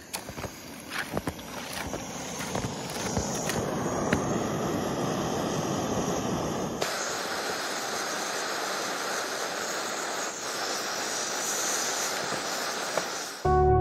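Canister gas backpacking stove burning with a steady hiss under a pot of snow being melted for water. A few clicks and crunches of the pot being handled in the first four seconds.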